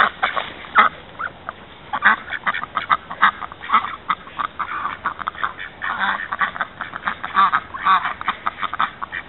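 A flock of domestic ducks quacking repeatedly in quick runs of short calls as a kelpie herds them, with a brief lull between about one and two seconds in.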